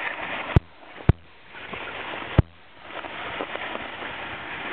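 A snowboard sliding over packed snow with a steady scraping hiss, broken by three sharp knocks about half a second, one second and two and a half seconds in.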